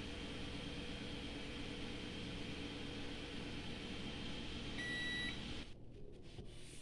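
Steady hum of a running kitchen appliance, with a single short high-pitched electronic beep about five seconds in; the hum stops soon after.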